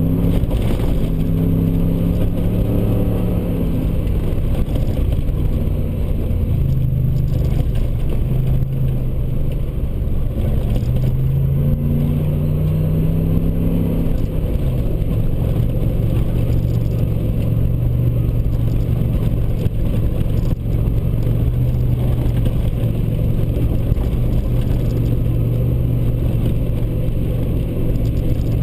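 Ford Raptor pickup's engine running while driving on a dirt road, heard from inside the cab. The engine note rises and falls a few times in the first fourteen seconds as it speeds up and eases off, then holds steady over a constant low rumble of the tyres on the dirt.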